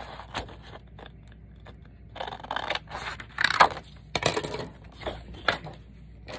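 Heavy craft paper rustling and scraping as it is handled over a cutting mat, in a series of short bursts with a few clicks, the loudest about three and a half seconds in.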